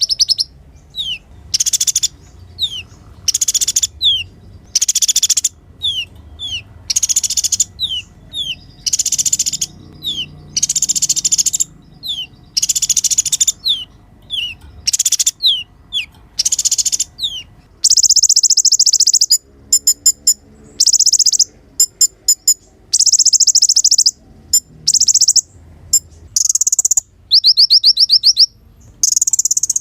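Kolibri ninja (konin) sunbird singing: high, rapid twittering bursts alternating with quick down-slurred notes. About two-thirds of the way through, the song turns into longer, dense trills.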